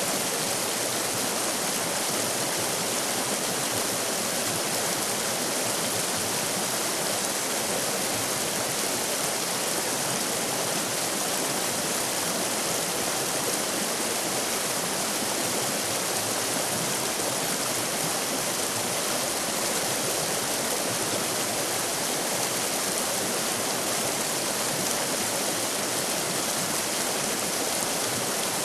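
River rapids: water rushing steadily over rocks, an even hiss with no breaks.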